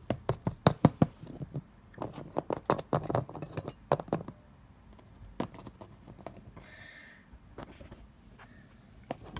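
Small plastic toy figures being handled and set down on a hard surface, making a quick run of light clicks and taps for the first few seconds, then a few scattered taps.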